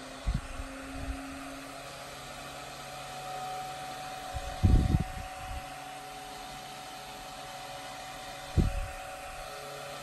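Holmes 10-inch retro desk fan running, a steady rush of air with a faint motor hum. As it oscillates, its airstream hits the microphone in low rumbling gusts a few seconds apart, the strongest about halfway through.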